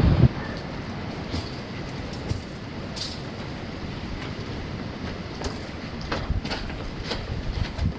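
Steady wind blowing and rumbling across the microphone, with a few light clicks and taps in the second half.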